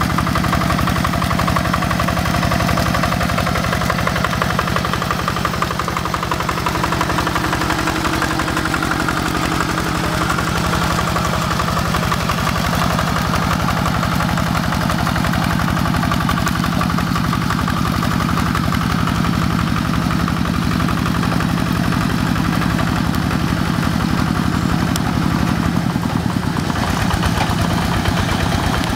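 Quick G1000 two-wheel hand tractor's single-cylinder diesel engine chugging steadily as it works the paddy, with fast, even firing pulses throughout.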